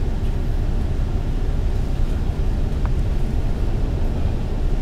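Steady low rumble of a MAN A95 double-decker bus cruising at speed on a highway: engine and tyre noise heard from inside the cabin.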